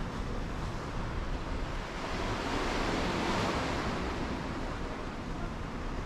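Sea surf washing in steadily, one wave swelling louder and breaking about halfway through, with wind rumbling on the microphone.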